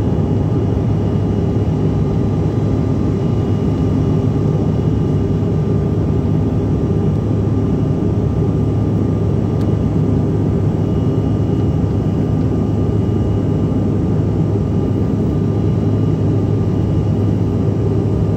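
Steady cabin noise of a CRJ-700 regional jet climbing after takeoff: its rear-mounted General Electric CF34 turbofans and the airflow make an even low rumble, with a faint steady whine above it.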